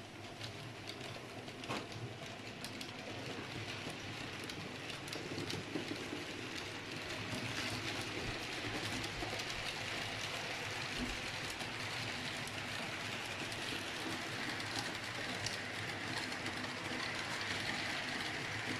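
H0-scale model freight train, pulled by two ÖBB electric locomotives, running along the layout track: a steady rolling rumble of wheels on rails with many quick clicks over the rail joints, growing louder over the first several seconds.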